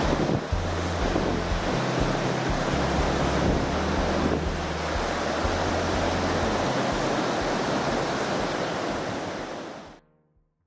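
Steady rushing of river water, with wind buffeting the microphone in low uneven rumbles. It fades out near the end.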